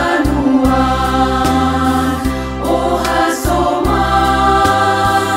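Women's choir singing a praise song in harmony over an instrumental backing track with sustained bass notes and a regular beat.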